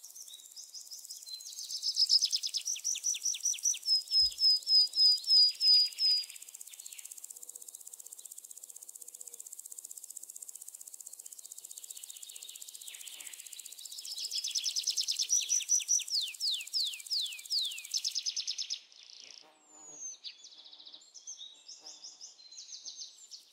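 Outdoor nature ambience: birds calling in two loud runs of rapid repeated chirps, some sliding down in pitch, over a steady high insect drone that stops about three quarters of the way through, leaving scattered chirps.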